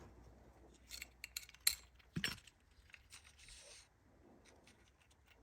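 Small hard parts of a 3M file belt sander being handled while its belt is changed: a few sharp clicks and knocks in the first half, a short stretch of rubbing, then quieter handling.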